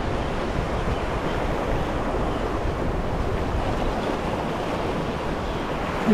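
Sea surf washing steadily on the shore, with wind rumbling on the microphone.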